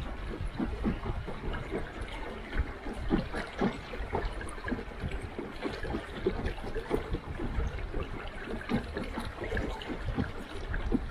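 Water lapping and gurgling against the side of a moving wooden boat's hull: a quick, irregular run of small splashes over a low rumble.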